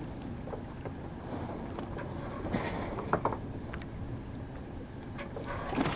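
Wind buffeting the microphone and water washing along a sailboat's hull as a steady rush, with a few short knocks and creaks about halfway through.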